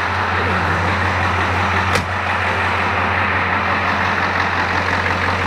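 Ford 7.3-litre IDI diesel engine idling steadily just after a start, driving the belt-driven vacuum pump under test, with one sharp click about two seconds in. The pump is pulling strong vacuum, around 26 to 27 inches on the gauge, a sign it is now working.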